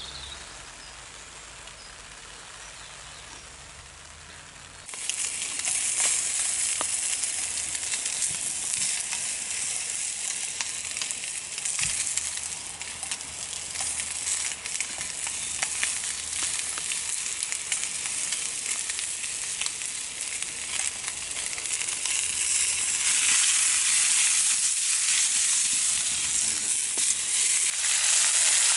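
Meat frying in a pan over a Swedish fire log, a split log burning from the inside: a steady high sizzle with scattered crackles. The sizzle comes in suddenly about five seconds in, after a quieter opening, and gets louder near the end.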